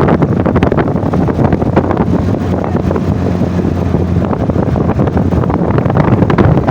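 Offroad vehicle engine running on the move, with heavy wind buffeting the microphone.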